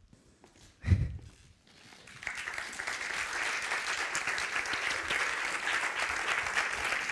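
Audience applause, starting about two seconds in and settling into steady, dense clapping. Before it, a near-silent moment broken by a single low thump about a second in.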